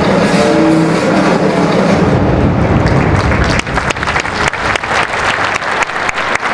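Stadium music fading out over the first two seconds, then a large crowd clapping from about three and a half seconds in, in quick, closely spaced claps.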